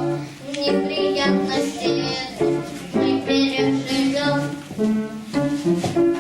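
A song: children singing a melody over instrumental accompaniment.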